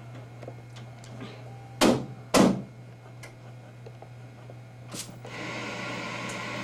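An old tube television set is handled at its controls: two loud knocks about half a second apart, then a click about five seconds in followed by a steady hiss as the set comes on, over a steady low hum.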